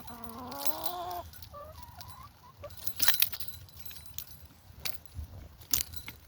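A hen gives a drawn-out, wavering call of about a second, followed by a couple of short clucks. Sharp clicks and rattles come about three seconds in and again near the end.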